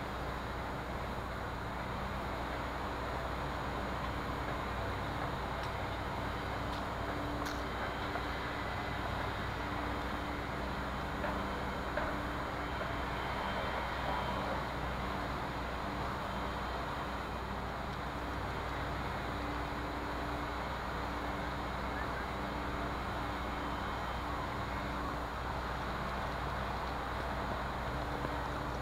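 Steady urban background noise: a constant low hum of distant traffic with no distinct events.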